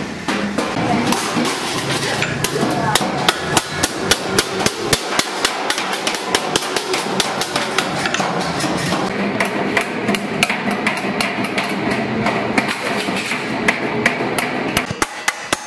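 Hand hammer striking a curved stainless-steel sheet held against a rolling machine's frame: a quick, steady run of metallic blows, shaping the sheet for a milk can.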